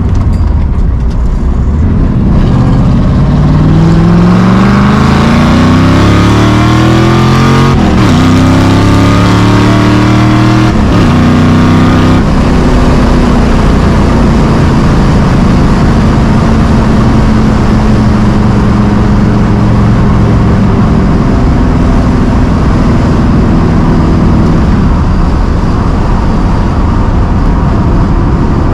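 1965 Ford Mustang Fastback's engine accelerating hard. Its revs climb, then fall sharply as it shifts up, about eight and twelve seconds in, and it settles to a steady cruise. The owner thinks it is still running a little rich at wide-open throttle.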